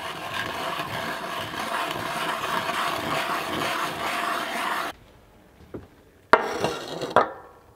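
Maple sap boiling hard in a small stainless pot, nearly down to syrup: a dense crackling bubble hiss that cuts off abruptly about five seconds in. Near the end, a sharp knock opens a second, shorter burst of similar noise.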